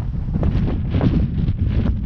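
Wind buffeting the microphone: a loud, low, gusty rumble that swells and buffets irregularly.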